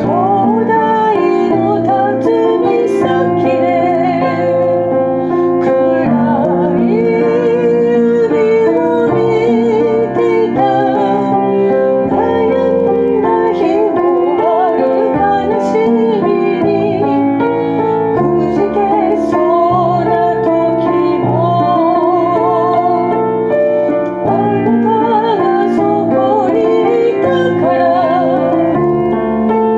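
A slow ballad sung with vibrato over piano accompaniment.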